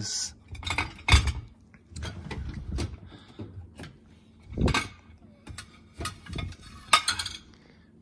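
Mugs and plates clinking and the wire upper rack of a dishwasher knocking as the loaded rack is handled and pushed in, a string of sharp clinks and knocks. The rack is being pushed fully home so it no longer stops the detergent tablet lid from opening.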